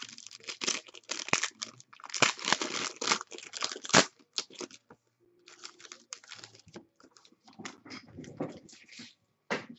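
Clear plastic wrapping crinkling and tearing as it is pulled off a trading card box's contents, with a sharp crackle about four seconds in. Softer rustling and light plastic clicks follow as the cased card is handled.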